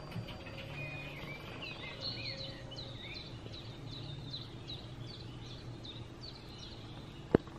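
Bird calls from a video played on a smartphone's speaker: a varied high warbling, then a quick regular series of short chirps at about three a second. A single sharp tap sounds near the end.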